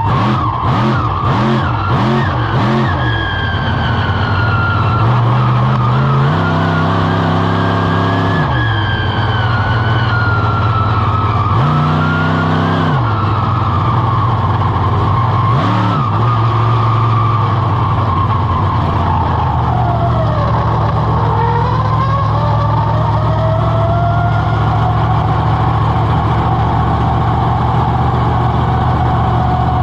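Monster truck engine heard on board. It blips the throttle quickly about twice a second for the first few seconds, then runs more steadily with a few surges of revving. A high whine over the engine dips and rises again around twenty seconds in.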